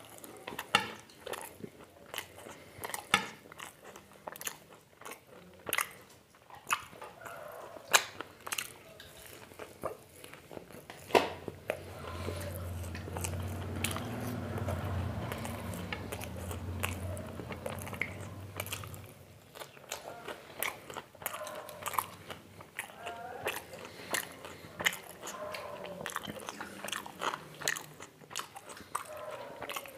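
Close-miked eating: repeated crunchy bites and chewing. A low steady hum comes in for several seconds in the middle.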